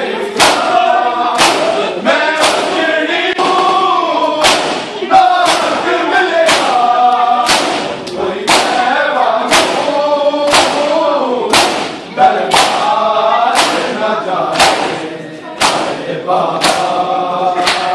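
Matam: a crowd of men beating their chests with their open hands in unison, a sharp slap about once a second, while male voices chant a noha (Shia lament) over the beat.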